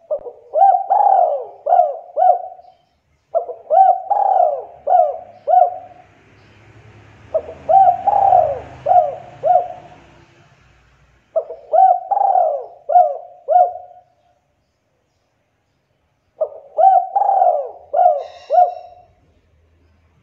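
Spotted dove cooing its song five times, about every four seconds. Each phrase is a short opening note, a longer coo, then two short coos.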